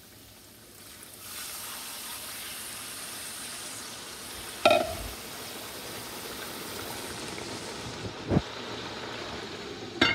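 Water poured into a hot pot of browned oxtail whose liquid has cooked down: a loud sizzle swells up about a second in and keeps going. A sharp metallic clank comes near the middle, a knock later, and a clank of the metal lid going onto the pot right at the end.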